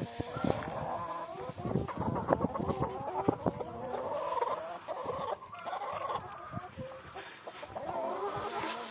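A flock of hens and roosters clucking continuously, many short overlapping calls, as they feed on scattered wheat.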